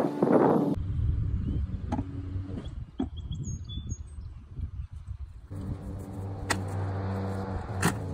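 Outdoor ambience: a low rumble with a few sharp knocks and a brief high chirp like a bird. A steady low hum comes in about halfway through.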